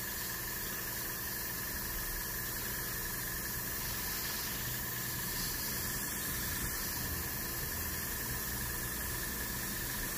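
Gravity-feed airbrush hissing steadily as it sprays primer in light passes, with a steady low hum underneath.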